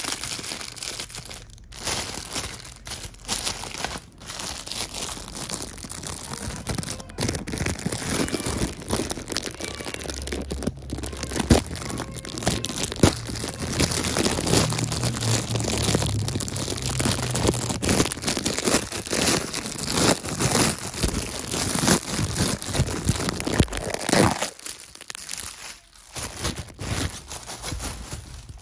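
Clear plastic bag crinkling and crackling as a plush toy is pulled out of it, with dense crackles and handling bumps, dying down briefly a few seconds before the end.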